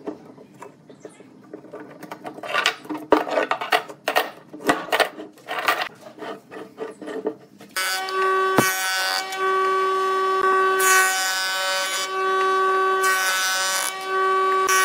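Irregular scraping and clicking from hand work on a clamped glue-up block. About 8 s in, a jointer starts to be heard running with a steady whining hum. Its cutterhead then planes the face of the glued block in loud hissing passes.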